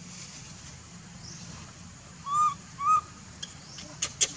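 Baby macaque giving two short coo calls about half a second apart, each rising then falling in pitch, then a quick run of sharp clicks near the end. These are the infant's calls to its mother to come and nurse it.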